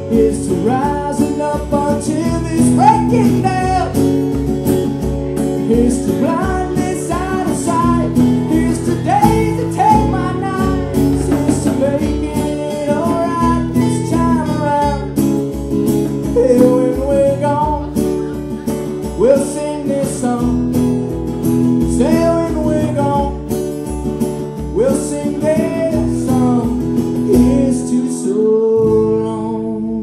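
A man singing a song, accompanied by his own strummed acoustic guitar. Near the end the strumming stops and a chord rings on.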